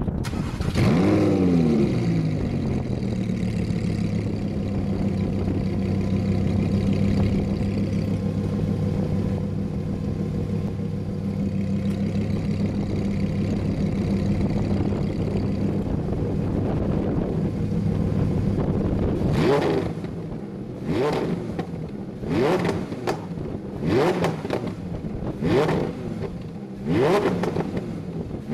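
Lamborghini Huracan's 5.2-litre V10 through a ROWEN full titanium exhaust: it fires up with a rev flare that falls back to a steady idle. In the last nine seconds it gives a string of short throttle blips, about one every second and a half.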